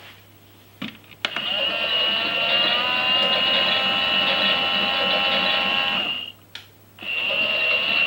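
Small electric motor of a toy Miele Softtronic washing machine whining as it turns the drum of water and hankies, after a few clicks. The whine rises slightly as it starts, stops about six seconds in, a click, and starts again a second later as the wash action pauses and restarts.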